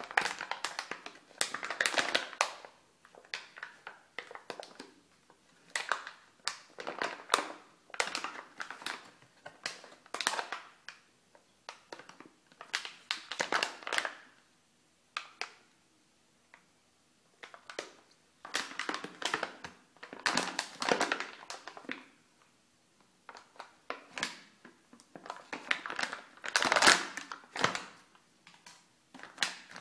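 Foil bath-ball packet crinkling and crackling in the hands as it is handled and torn open, in repeated bursts with short pauses between them.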